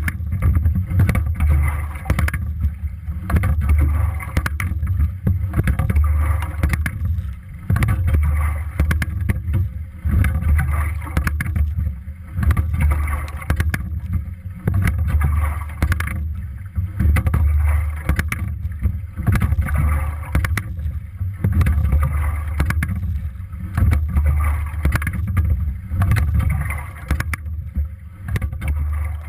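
Single scull being rowed: a low rush of water and air that swells and fades with each stroke, about every two seconds, with sharp clicks from the oars and rigging.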